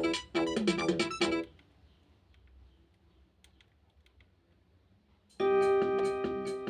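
Nokia 1315 ringtone playing on a Nokia 110 mobile phone. A quick run of short electronic notes stops about a second and a half in, and after a pause of about four seconds the tune starts again with a held note.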